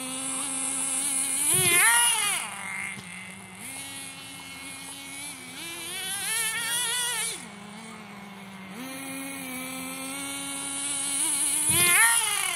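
Team Associated SC10GT nitro RC truck engine running, with three throttle bursts in which the pitch swoops up and falls back. The loudest are about two seconds in and near the end, and between them it holds a steady lower note.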